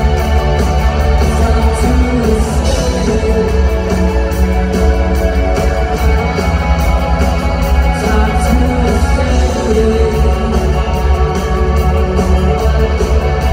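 Live rock band playing at arena volume: drums keeping a steady beat under electric guitars and keyboards.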